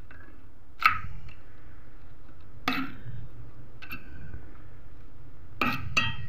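Metal spoon scraping and clinking against a steel pan while turning a frying egg: about five short sharp scrapes, the loudest about a second in and a quick pair near the end, over a low steady rumble.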